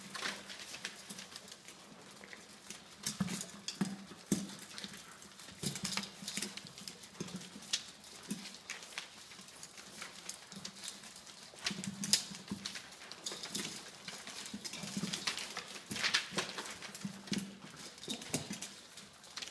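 A litter of six-week-old Labradoodle puppies eating dry kibble from a stainless steel pan: irregular crunching and clicking of kibble and pan, with paws shuffling on newspaper.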